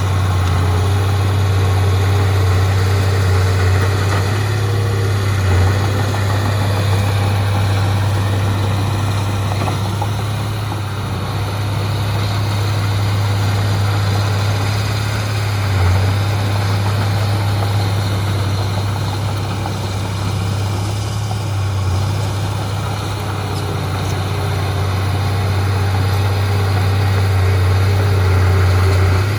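Heavy diesel engine of earthmoving machinery running steadily with a strong low hum, swelling briefly a few times.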